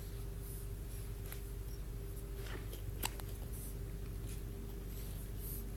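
A single short, sharp hiccup about three seconds in, with a few fainter clicks, over a steady low room hum.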